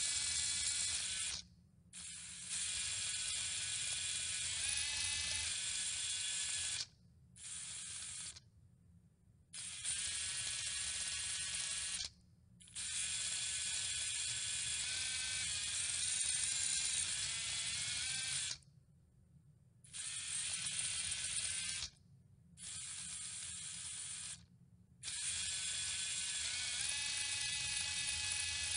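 Moorebot Scout robot's small geared drive motors whirring as it drives, heard from on board the robot. The whine stops and starts again several times as the robot is moved and halted.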